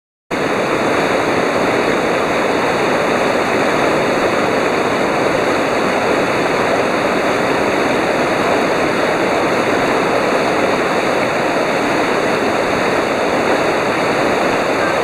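River rapids rushing steadily, cutting in abruptly just after the start.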